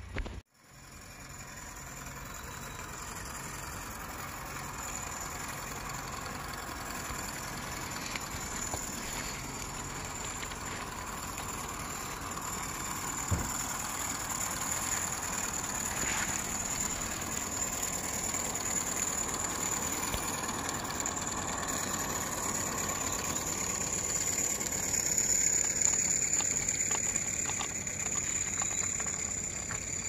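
Regner Heisler live-steam garden-railway locomotive running, a steady hissing, mechanical running sound that grows louder as it draws near, loudest about 26 seconds in. One sharp click about 13 seconds in.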